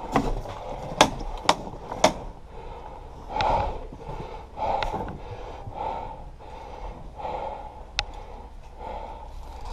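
Heavy, even breathing close to the microphone, one breath about every second. It is broken by sharp cracks of airsoft gunfire: several in the first two seconds and one more about eight seconds in.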